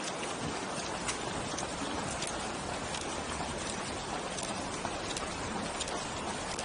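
Running footsteps on a paved road: an uneven patter of shoe strikes, several runners together, over a constant rushing hiss.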